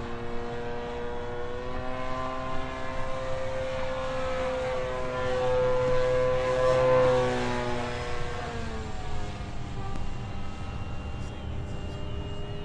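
Electric motor and propeller of an FMS 1700mm P-51 RC plane whining in flight. It grows louder to a peak about seven seconds in, then drops in pitch and fades as the plane passes by.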